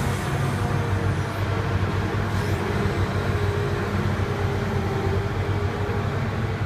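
Heavy diesel engine of a large excavator running steadily with a low, even hum.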